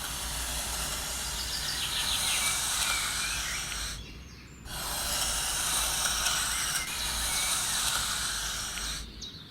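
A steady hiss of outdoor noise with faint bird chirps, broken by a short gap about four seconds in.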